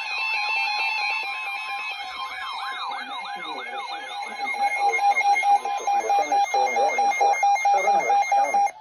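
Electronic emergency alert tones: a siren-like wail sweeping up and down about twice a second over steady two-tone alert signals, giving way about halfway through to a loud, rapidly pulsing tone that cuts off sharply near the end, marking the start of the next weather warning.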